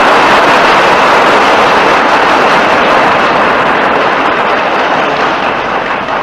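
Audience applauding, dense and steady clapping that slowly dies down near the end.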